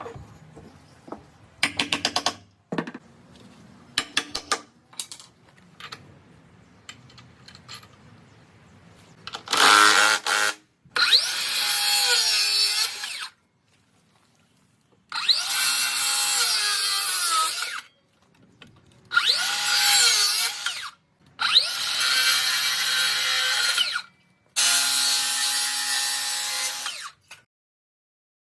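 A power drill runs in six bursts of one to three seconds each, its pitch dipping and rising as it loads up. Short clicks and brief whirs come before the bursts.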